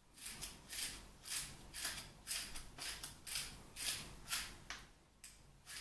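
Hand-twisted salt mill grinding salt: a quick series of short, gritty crunching strokes, about two to three a second, with a brief pause near the end.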